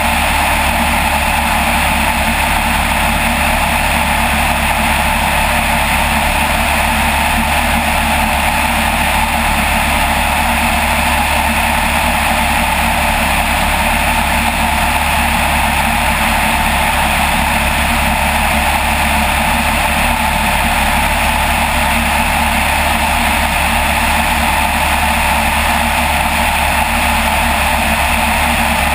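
Light aircraft's engine and propeller running steadily in level flight, an even drone that does not change.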